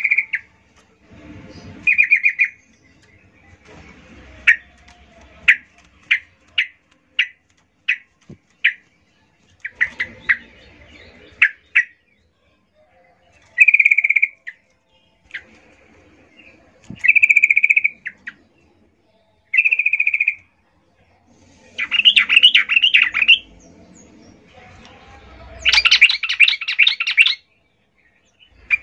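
Yellow-vented bulbul (trucukan), a female calling for a male: short chirps and a run of quick single notes, then two longer, rapid chattering bursts near the end.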